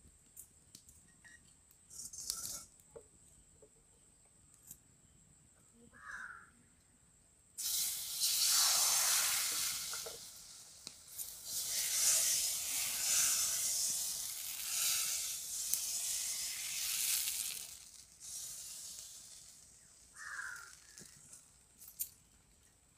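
Rice batter for saru chakuli sizzling on a hot iron pan: a loud hiss that starts suddenly about a third of the way in and dies away about ten seconds later.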